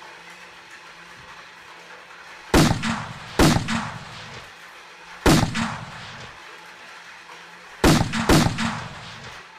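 Gunshots: five sharp bangs, each ringing off for about a second. The first two come close together, one falls midway, and two more come near the end.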